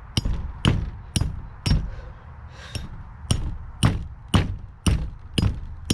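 Hand sledgehammer (2.5-pound) striking a metal animal-barrier panel to drive it into the ground: about nine sharp blows, about two a second, with a short pause a little after two seconds in. The blows are meant to force the panel past a buried rock that the worker believes is blocking it.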